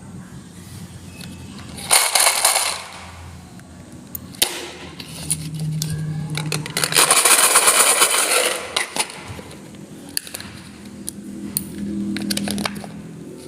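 Marbles rolling and clacking along a marble-run track: short rattling runs, the longest from about 7 to 8.5 seconds in, with scattered sharp clicks as they strike and drop between track pieces.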